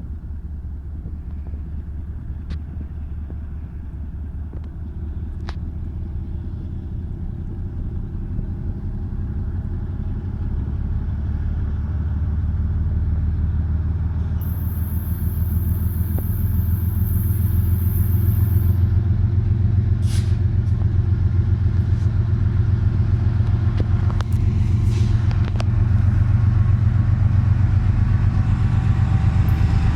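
Diesel freight locomotives under heavy throttle, accelerating: a deep, throbbing engine rumble that grows steadily louder as they approach. A brief high hiss comes in about midway.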